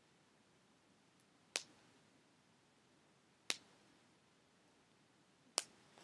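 Three short, sharp clicks, evenly spaced about two seconds apart, against near silence.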